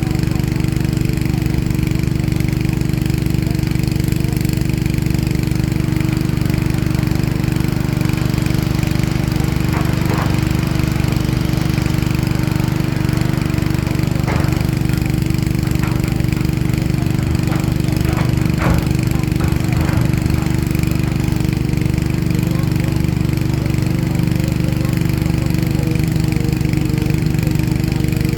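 Heavy diesel engine of construction machinery running steadily at constant speed, with a few faint knocks and clanks around the middle.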